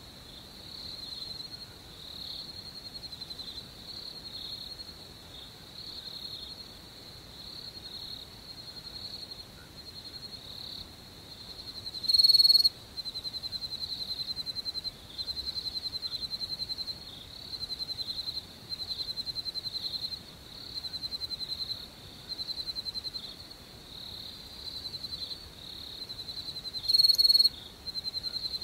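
Crickets trilling in rapid, high-pitched pulsed bursts of a second or two, one after another. About halfway and again near the end, a much louder, shriller call stands out above the rest.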